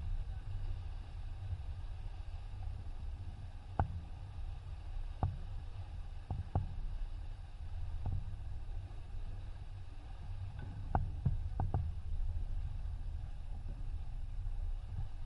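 Low, steady rumble of wind on the microphone and water past the hull of a sailing yacht running under spinnaker, heard from a camera mounted on board. A handful of short, sharp knocks or clicks sound now and then, several close together about two-thirds of the way through.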